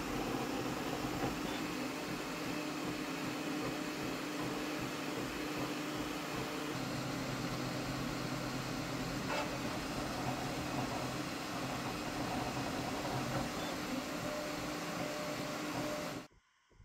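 Flashforge Adventurer 5M Pro core-XY 3D printer running a print: a steady whir of its fans with a motor hum under it that changes note now and then as the print head moves. The sound cuts off suddenly near the end.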